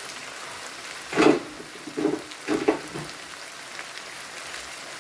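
Ackee and saltfish frying in a pan, a steady sizzle, with a few short louder sounds between about one and three seconds in.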